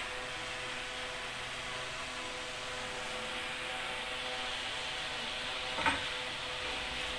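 Homemade bandsaw running, its wheel shaft turning in pillow-block bearings with a steady machine hum and rubbing noise. A single sharp click about six seconds in.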